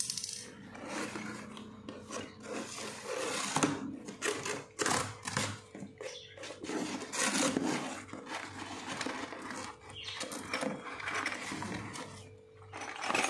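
Hands opening a cardboard shipping box: irregular rustling, scraping and knocking of cardboard flaps, with the printed cardboard product box inside being pulled out near the end.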